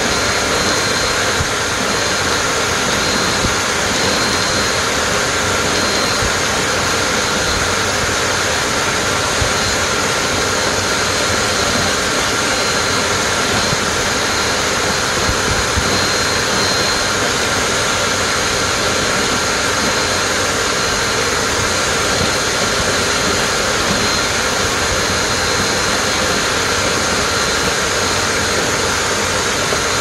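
Bissell PowerForce Compact bagless upright vacuum running steadily, its hose sucking up loose popcorn off a board into the dust cup.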